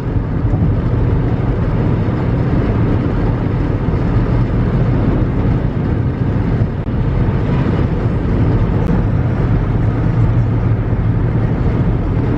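Steady road and engine noise heard from inside a moving car's cabin: a constant low rumble and tyre hiss.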